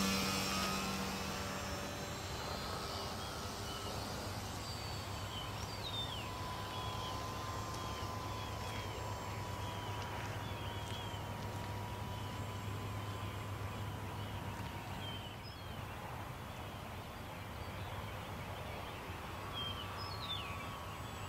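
RC model airplane's motor fading in the first couple of seconds as it climbs away after takeoff, then a faint distant whine that wavers in pitch as it flies around. Birds chirp repeatedly through the first half.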